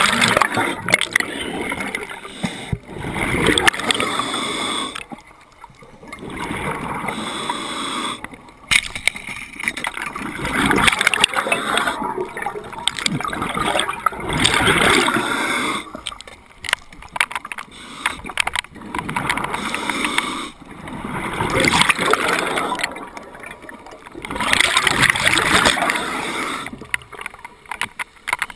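A scuba diver breathing through a regulator underwater: rushes of gurgling exhaust bubbles and breath noise, one every few seconds, with short quieter gaps between breaths.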